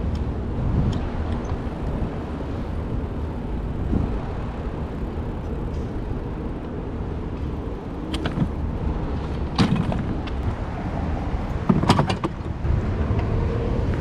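Wind buffeting the microphone of a chest-mounted camera on a moving bicycle, a steady low rumble. It is broken by a few short sharp rattles from the bike jolting over bumps, once just past the middle and again a few seconds later.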